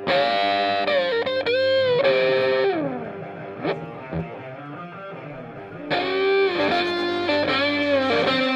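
Background music: distorted electric guitar playing a lead line with bent and sliding notes, in two phrases with a quieter gap between them.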